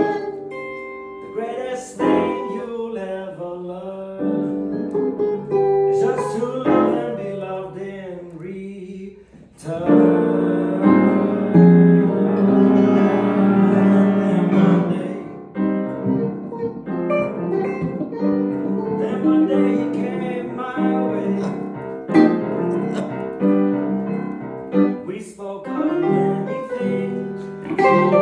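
Instrumental music led by piano, with sustained chords and a fuller, louder passage in the middle.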